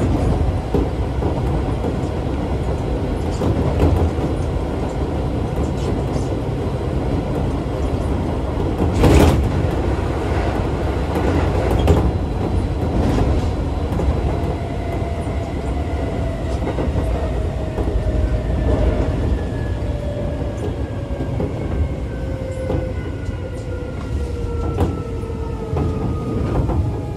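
Keisei 3400 series electric train running, heard inside the passenger car by the doors: a steady rumble of wheels on rail with scattered clicks over rail joints and a loud thump about nine seconds in. From about halfway a whine sets in and falls steadily in pitch.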